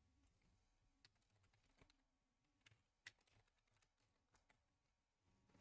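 Near silence with a handful of faint computer keyboard clicks, the clearest about three seconds in.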